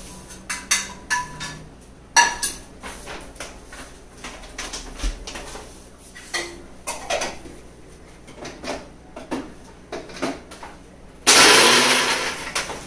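Clatter and knocks as a mixer grinder jar is handled and fitted to its base. About eleven seconds in, the mixer grinder runs briefly and loudly, grinding dry-roasted groundnuts and sesame to powder.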